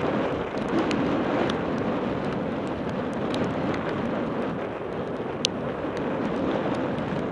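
Mountain bike riding fast over a grassy dirt trail: a steady rush of tyre and wind noise on the bike-mounted camera's microphone, with small rattling clicks from the bike. One sharp click stands out about five and a half seconds in.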